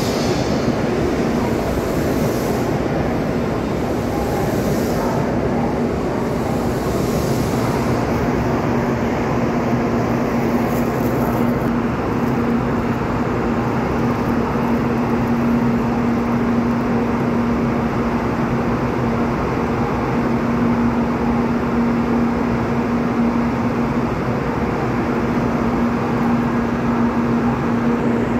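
Shinkansen train moving slowly alongside the platform: a steady rumble and hiss with a steady electric hum that grows stronger about halfway in, and airy swishes over the first several seconds.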